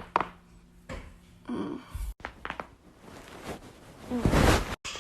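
Neck joints cracking during chiropractic adjustments: quick sharp pops at the start and again about halfway, with a louder rush of noise near the end.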